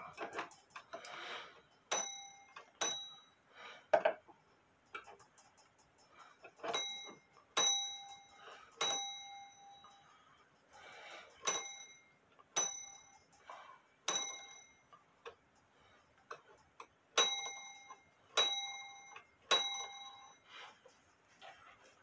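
Clock gong on a double fusee drop dial clock struck about a dozen times, each a short bright ring, in loose groups of two or three while the gong is being adjusted. Handling clunks and rustles come in between.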